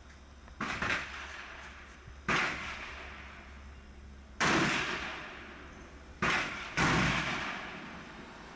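Gunshots fired at a shooting range: six separate reports at irregular intervals, two in quick succession near the start. Each report trails off over about a second.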